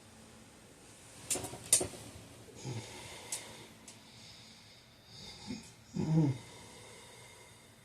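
A man snoring in his sleep: a low rough breath a little under three seconds in and a louder rough snore about six seconds in. Two sharp clicks come between one and two seconds in.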